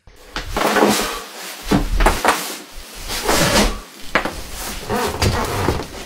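A string of knocks and cracks with clothing rustling, several in close succession, as a man's back is twisted and cracked in a standing back twist.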